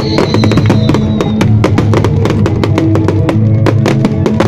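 Loud show music with sustained notes and drums, overlaid with a dense run of sharp pops and crackles from aerial fireworks bursting.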